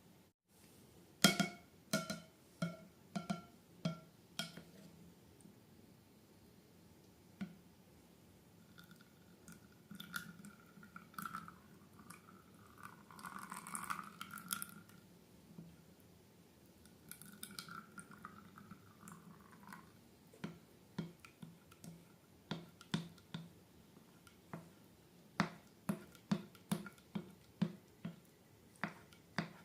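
Slime being handled: a run of sharp, wet clicks and pops, a longer stretch of squelching in the middle, then quick clicks again.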